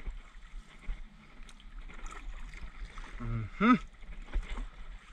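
Kayak paddle strokes through shallow, weedy pond water, with a few light knocks. A short voice-like sound comes about three and a half seconds in.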